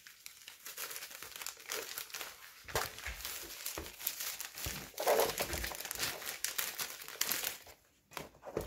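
Clear plastic folder sleeve crinkling as a diamond painting is slid into it and pressed flat by hand, with louder crinkles about three and five seconds in.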